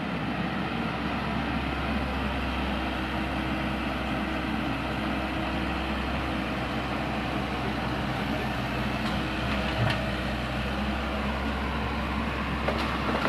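Mini excavator's diesel engine running steadily during demolition work, with a couple of faint knocks near the end.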